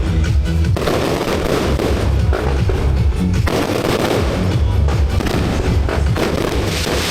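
Fireworks going off in quick succession, a dense run of deep booms and crackling bursts, with music playing along.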